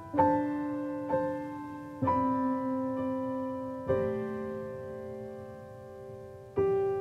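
Slow piano background music: chords struck a few at a time, each one ringing on and fading before the next.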